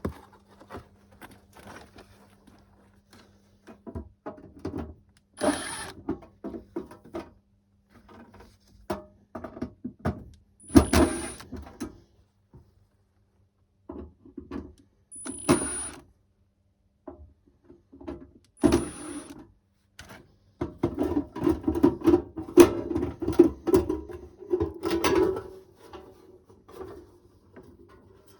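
Irregular knocks and clatter of tools and parts being handled, with four short, louder bursts and a denser run of clatter near the end.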